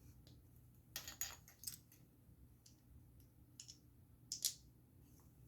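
Small plastic Lego pieces clicking and clattering as they are handled during a build: a quick cluster of clicks about a second in, a few single clicks, and a louder double click near the end.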